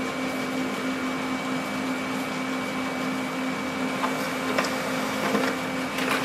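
Brother DCP-L2550DW monochrome laser printer running a print job: a steady mechanical whirr with a constant low hum and a thin high tone, with a few light clicks about four and six seconds in.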